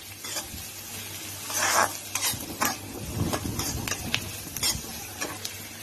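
Onion and capsicum sautéing in oil and butter in a pan: a steady sizzle, with irregular scrapes and clicks as they are stirred.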